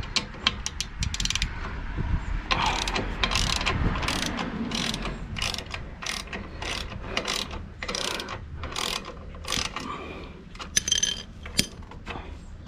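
Hand ratchet wrench clicking through repeated back-and-forth strokes on the exhaust mounting nuts: quick clicks at first, then a steadier run of about two strokes a second.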